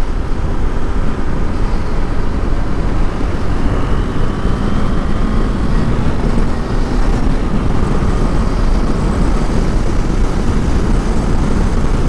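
Motorcycle ridden at highway speed and accelerating to over 100 km/h, heard through a helmet-mounted mic as a steady rush of wind over the engine running.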